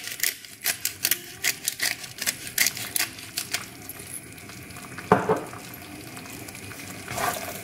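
Pepper being dusted over chicken pieces in a wok: a run of quick, crisp clicks, about four or five a second, that stops about three and a half seconds in. After that the chicken simmers in its reducing broth with a soft, steady sizzle.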